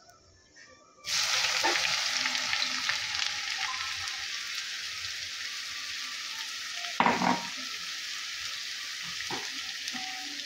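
Chopped raw onions hitting hot oil in a kadhai about a second in, setting off a sudden loud sizzle that settles into steady frying as the onions start to cook. A short louder sound stands out about seven seconds in.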